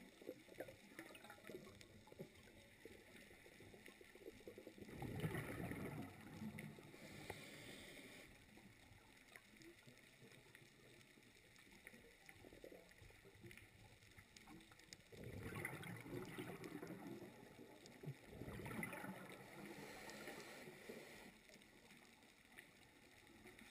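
Faint, muffled underwater water noise picked up by a camera on the seabed. It has three louder swells of rushing sound, about five, fifteen and nineteen seconds in.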